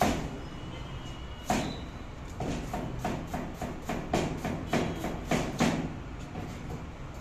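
Chef's knife chopping a vegetable on a plastic cutting board: two single knocks, then a run of even chopping strokes about three a second.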